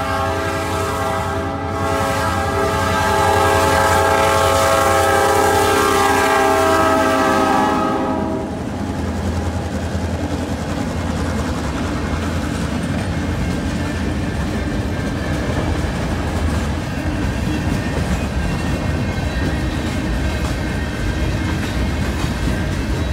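CN freight diesel locomotive's air horn sounding a long blast for the grade crossing, cutting off about eight seconds in. The locomotive then passes, followed by boxcars with steady wheel-on-rail noise.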